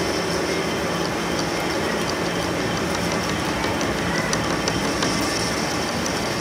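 Metal lathe running with a single-point tool bit cutting the turning steel end of a tractor trolley axle: a steady machine hum and cutting noise with a few faint ticks.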